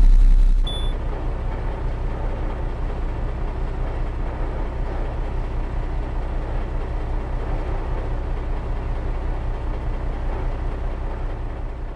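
Peugeot 407's 2.7 HDi V6 diesel engine catching after the starter cranks it. It settles within the first second into a steady idle, then fades out near the end.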